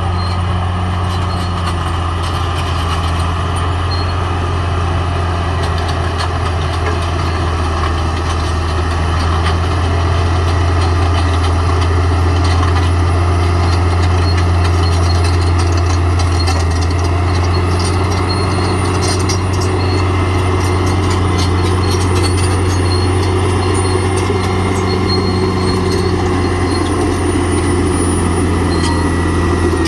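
Caterpillar D6R XL bulldozer's diesel engine running steadily at working speed: a deep, even drone with light clicks through it, growing slightly louder about a third of the way in.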